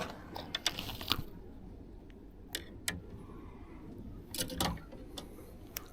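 Scattered knocks and light rattles in a boat as a small blue catfish and tackle are handled, over a low steady rumble.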